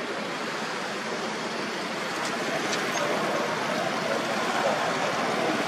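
Steady background hiss that grows slightly louder towards the end, with two faint ticks a little over two seconds in.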